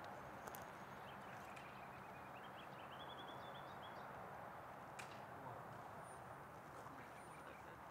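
Faint song of a small songbird: a run of short notes climbing in steps over about three seconds, over a steady background hiss. A couple of sharp clicks and two brief, very high thin whistles come later.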